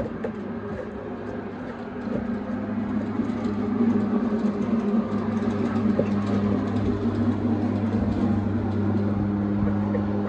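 A steady low mechanical hum, like a running motor or engine, growing louder about two seconds in and again about four seconds in.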